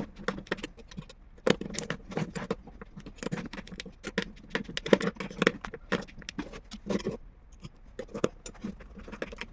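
Irregular light taps, clicks and scrapes, a few each second, like small hard objects being handled and set down.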